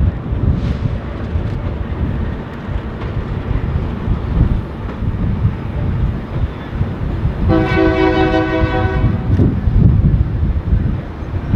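Train running by with a steady low rumble; the locomotive's air horn sounds once, about two-thirds of the way through, a chord of several tones held for nearly two seconds.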